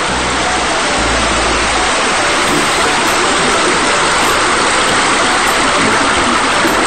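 A steady rushing noise like flowing water, even in level throughout.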